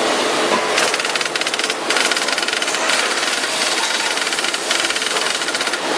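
CNC key cutting and numbering machine at work on a key, a loud dense rapid chatter that starts about a second in, breaks off briefly, and dies back a little before the end.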